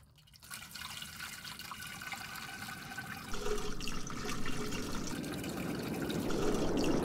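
A stream of water pouring into a plastic funnel, splashing and trickling away, growing steadily louder.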